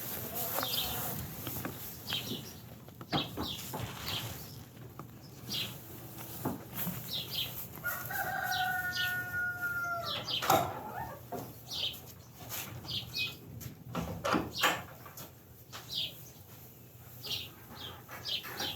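Chickens in a flock: many short high chirps and clucks throughout, and a rooster crowing once, one call of about two seconds, about eight seconds in. A couple of sharp knocks stand out just after the crow and again a few seconds later.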